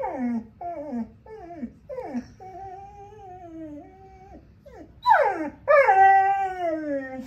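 A solid chocolate Catahoula leopard dog whining and 'talking': four short falling whines, then a softer held, wavering whine that steps down in pitch, then a loud falling yelp and a long drawn-out howl-like whine that slides down to the end. Her owner calls it singing.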